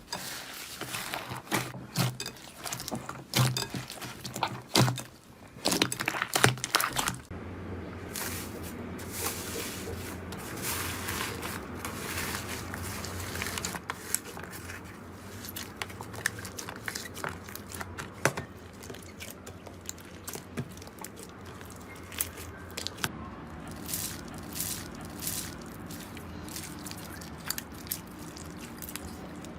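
Slime being handled: squished, poked and stretched, with quick sticky pops and crackles. The clicks come thick and fast for the first several seconds, then thin out over a softer, steadier squelching.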